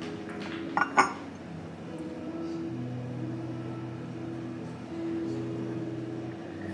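Porcelain teacup set down on its saucer: two quick ceramic clinks about a second in. Soft background music with long held notes plays underneath.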